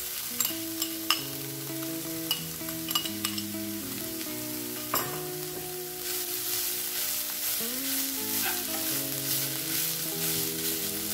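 Grated paneer and carrot frying in hot oil in a non-stick pan and stirred with a wooden spatula: a steady sizzle with several sharp taps of the spatula against the pan in the first half. About six seconds in the sizzling grows denser and louder.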